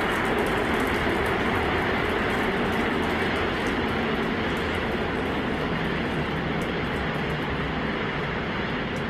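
Super Heavy booster's 33 Raptor engines firing at full thrust during ascent: a steady rocket rumble that slowly gets quieter as the vehicle climbs away.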